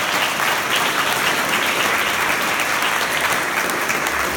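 Audience applauding loudly and steadily, many hands clapping at once.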